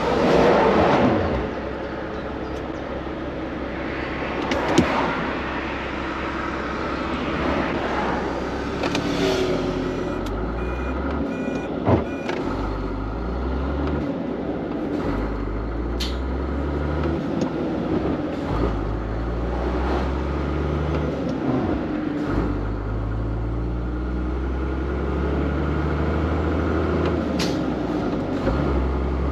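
ERF lorry's Cummins M11 diesel heard from inside the cab while pulling away and accelerating. The engine note climbs, then drops at each upshift, several times over, with a few short clicks from the cab.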